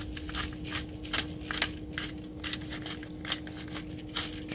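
Hand-twisted pepper grinder cracking black peppercorns: a run of quick, irregular crunching clicks, several a second.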